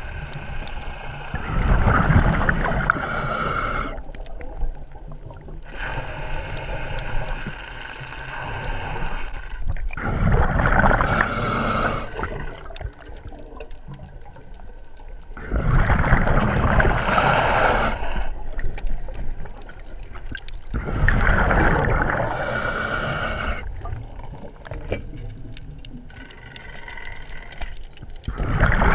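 Scuba diver breathing through a regulator underwater: a slow breath every several seconds, each breath out a loud rush of bubbles, with quieter stretches between.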